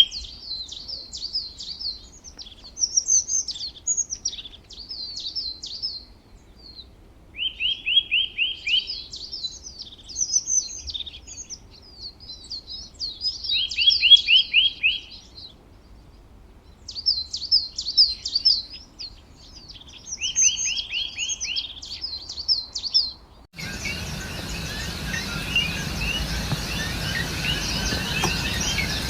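A songbird singing the same song over and over, each song a fast trill of quick falling strokes followed by a string of higher, varied notes, repeated about every six seconds. About two-thirds through, it cuts abruptly to a dense, steady chorus of many birds calling at once over a background hiss.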